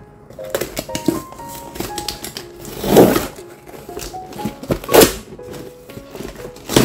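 Packing tape being ripped off a cardboard box: three loud tearing rips, about three seconds in, about five seconds in and again near the end, over background music.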